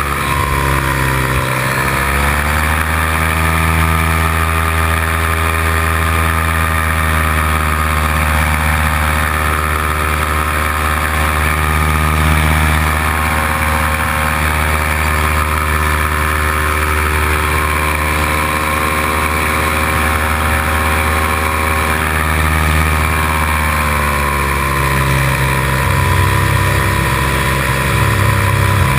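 Paramotor engine and propeller running in flight. The pitch dips briefly about a second in, holds steady, then drops lower near the end as the engine slows.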